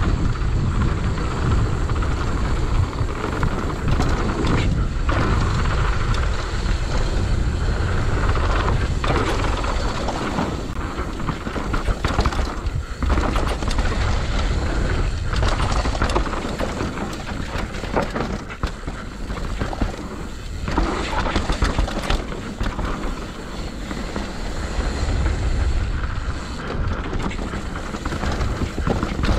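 Wind rumbling on an action camera's microphone as a mountain bike descends a dirt downhill trail, with the tyres rolling over dirt and the bike clattering over bumps and rocks in frequent short knocks.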